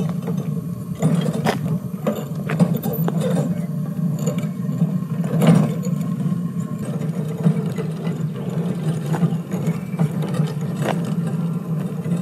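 Walk-behind hot-pour crack-sealing melter machine running steadily, with scattered clicks and knocks. The loudest knock comes about five and a half seconds in.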